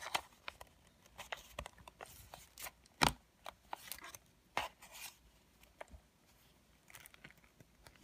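Handling of a plastic mini wireless keyboard: scattered clicks and rubbing from its casing and battery cover, with one sharper click about three seconds in.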